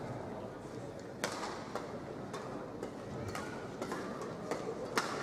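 Badminton rackets striking a shuttlecock in a doubles rally: a string of sharp hits about every half second, beginning about a second in, over the steady background noise of an arena crowd.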